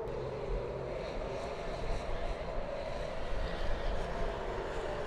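Israeli civil-defence alert siren wailing, its pitch slowly rising and then falling again.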